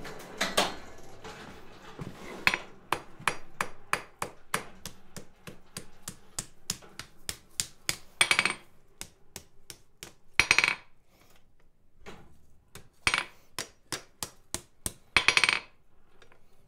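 Blacksmith's hand hammer striking hot steel on an anvil: a steady run of light blows about three a second, broken by four louder bursts of quick, ringing blows.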